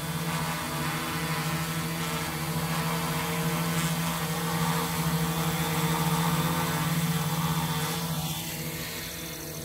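Homemade quadcopter's four motors and propellers buzzing steadily as it hovers, a constant whirring hum that dips slightly in loudness near the end.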